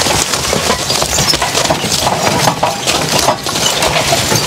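Two-way horse-drawn riding plow pulled by a three-horse draft team through corn stubble: a continuous, irregular clatter and clinking of the plow's steel frame, wheels and harness chains as the bottom turns the sod.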